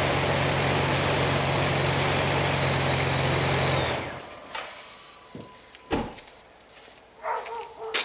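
Dodge SUV engine idling steadily after a jump start from a pocket lithium booster on a drained battery, with a faint high whine, then switched off about four seconds in. A sharp thud follows about two seconds later, with a few lighter knocks after it.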